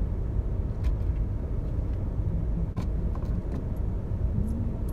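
Steady low rumble of a car idling, heard from inside the cabin, with a few light clicks and clinks of loose coins being picked through for change.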